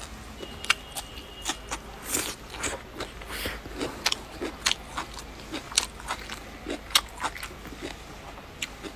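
A person chewing food close to the microphone: irregular crisp crunches and wet mouth clicks, a few every second.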